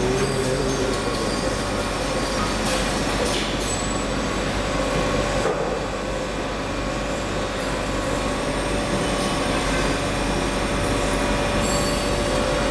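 Steady machine-shop noise: a continuous mechanical hum with a steady whine running through it, from grinding machines running in the workshop.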